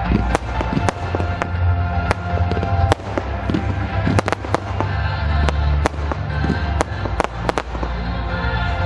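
Fireworks bursting: well over a dozen sharp, irregularly spaced bangs over loud music with a heavy, steady bass.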